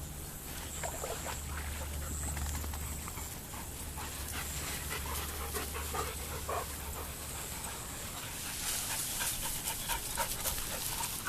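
Dogs panting close to the microphone, with a few short whines among the breaths; the panting gets louder and faster near the end.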